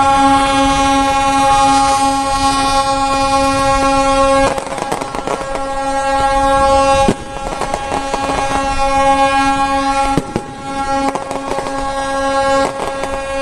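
A ship's horn blowing in a long, steady blast, breaking off briefly about seven and ten seconds in. From about four and a half seconds in, sharp cracks and knocks sound over it as the tugboat goes down its launch ramp.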